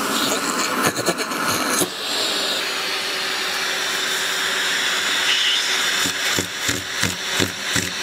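Vacuum cleaner running steadily close by, with rubbing and knocking noises in the first two seconds. From about six seconds in, a low pulsing sound joins it.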